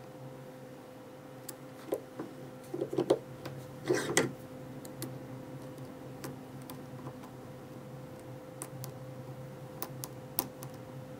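Small metallic clicks and scrapes of a lock pick working the pin stacks of an Asec 6-pin oval cylinder during single-pin picking, with a short run of louder clicking and scraping a few seconds in.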